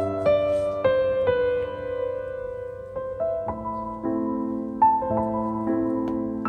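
Background piano music: a slow tune of single notes over held chords.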